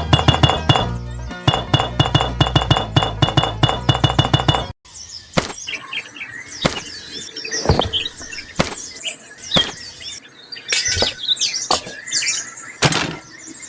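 Background music with a fast, even beat that cuts off suddenly about five seconds in. It is followed by scattered sharp clinks and knocks with short high chirps between them.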